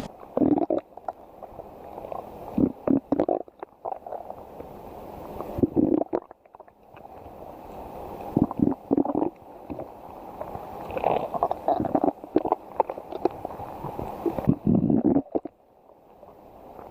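Stomach growling: a steady low churning, with clusters of louder gurgles and rumbles every few seconds.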